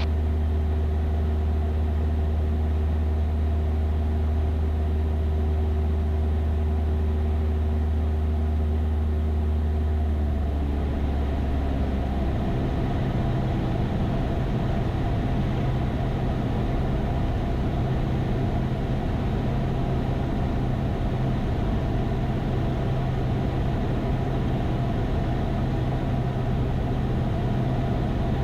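Cessna 172's piston engine and propeller droning steadily in flight, heard inside the cabin. About ten to twelve seconds in, the low note of the drone shifts up to a higher one while the loudness stays the same.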